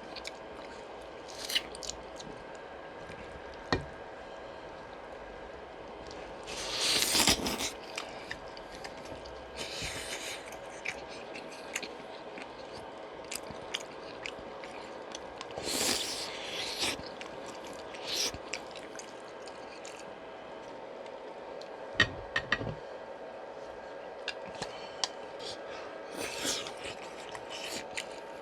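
Close-miked eating of pork bone soup (gamjatang): wet chewing and biting, with scattered sharp clicks and a few louder noisy bursts, over a faint steady hum.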